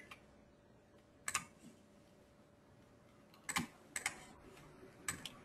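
Faint, scattered clicks of a computer mouse and keyboard, about half a dozen, some in quick pairs, with quiet gaps between.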